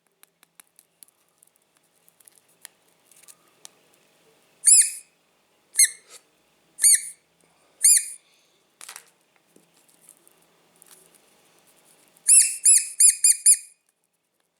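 High-pitched squeaks, each rising then falling: four single ones about a second apart, then a quick run of five near the end. Faint clicks and ticks fill the gaps between them.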